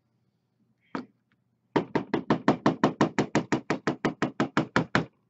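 A fly-tying hair stacker holding a clump of deer hair is rapped on the bench in a quick, even run of about twenty knocks, roughly six a second, after a single knock about a second in. The rapping settles the hair so its tips are evened out.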